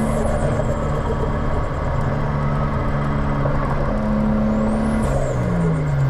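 Toyota 1JZ turbocharged straight-six engine running under way, its pitch holding steady and stepping between levels; near the end the revs fall away.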